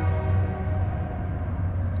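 Union Pacific diesel locomotive creeping slowly: its horn cuts off right at the start, leaving a faint trailing tone for about half a second, then the steady low rumble of the engine continues.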